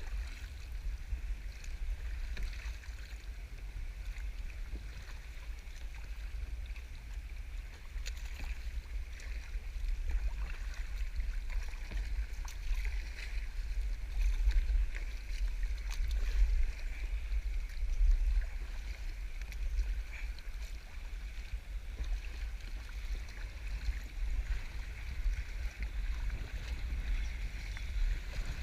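Water sloshing and splashing around a sea kayak on the move, under a strong, unsteady low rumble of wind on the microphone, with scattered small clicks.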